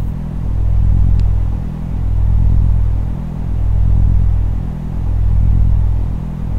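Deep, low bass drone from a background soundtrack, swelling and dipping about every second and a half.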